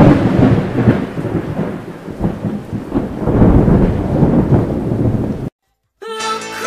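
A thunder sound effect: a sudden loud clap, then a rolling rumble with a rain-like hiss, cut off abruptly about five and a half seconds in. After a moment of silence, music starts near the end.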